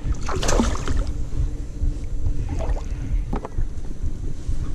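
Wind rumbling on the camera microphone and water moving around a kayak as a hooked Murray cod is fought, with a few short sharp noises, the loudest about half a second in.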